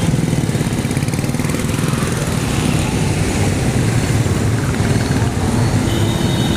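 Street traffic: small engines of auto-rickshaws and motorcycles running close by, making a steady low engine drone.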